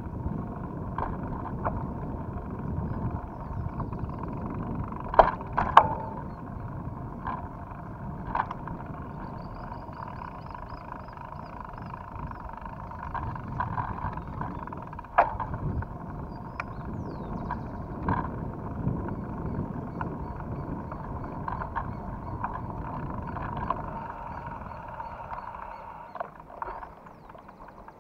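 Mountain bike ridden over a rough dirt path: a steady rolling rattle with frequent sharp knocks as it jolts over bumps, the loudest around five to six seconds in and again near fifteen seconds. The noise falls off near the end.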